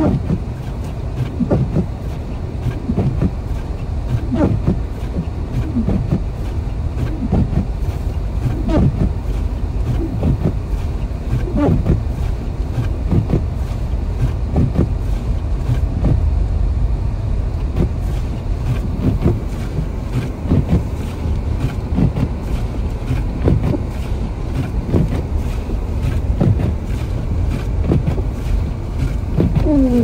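Car cabin noise while driving on a snow-covered road: a steady low rumble, with short swelling whooshes about every second.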